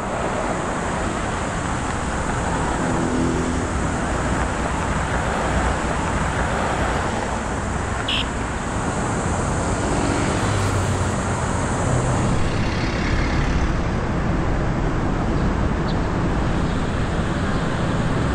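Steady city road traffic: the continuous rumble and hiss of passing cars and other vehicles.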